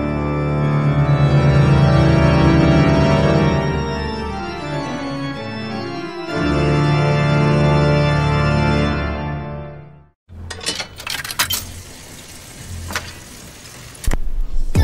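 Film-score music: sustained organ-like chords that shift to a new chord about six seconds in and cut off abruptly about ten seconds in. A quieter stretch of crackly noise with scattered clicks follows.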